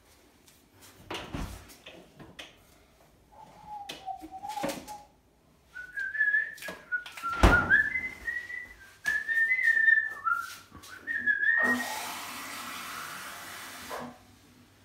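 A person whistling a wavering tune in short phrases, low at first and then higher, with a few knocks, one loud one in the middle. Near the end comes about two seconds of rushing water from the kitchen tap.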